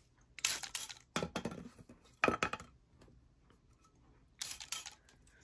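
Small handling noises while LED night lights are wiped clean with alcohol: a few short bursts of rustling and light clinking.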